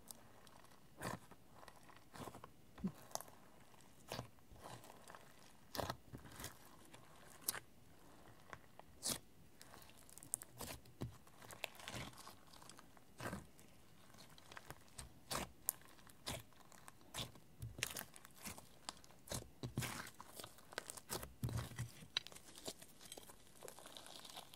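Clear slime mixed with eyeshadow, glitter, clay and small plastic parts being squeezed and kneaded by hand, giving irregular sticky pops and crackles.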